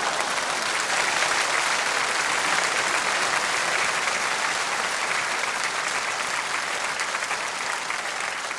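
Studio audience applauding, dense and steady clapping that eases off slightly near the end.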